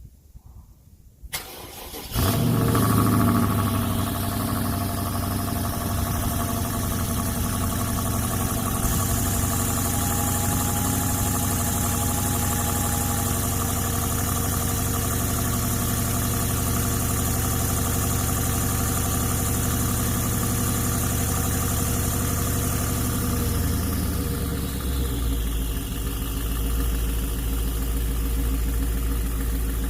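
BMW 550i's twin-turbo V8 with catless downpipes starting up. It fires about two seconds in with a brief flare and then idles steadily. Near the end the idle drops to a lower, deeper note.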